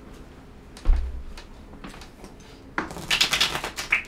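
A single low thump about a second in, then a second of quick rapid clicking and rustling from a deck of cards being shuffled by hand.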